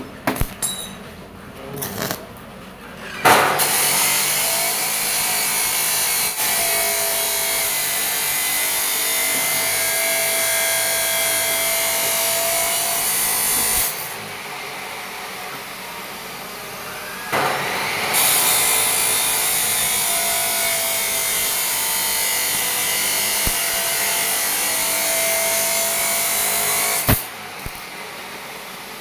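Stick (arc) welding on square steel tubing: a few short crackling tack strikes in the first three seconds, then two long runs of steady sizzling crackle of about ten seconds each, with a pause of a few seconds between them.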